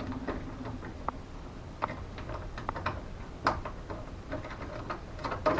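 Faint, irregular small clicks and ticks of small metal screws being handled and put back into their holes on the car body.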